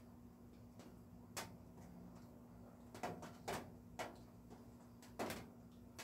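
Scattered raindrops tapping on a roof: about five sharp taps at irregular intervals, with fainter ones between, over a steady low hum.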